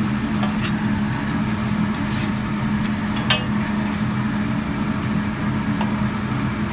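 Corned beef, sauerkraut and a boxty potato pancake sizzling on a flat-top griddle over a steady low mechanical hum, with one sharp click about three seconds in.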